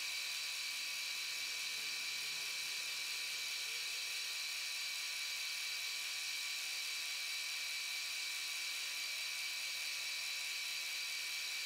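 Milling machine spindle running at speed with a steady high-pitched whine while the end mill cuts the part on the rotary table.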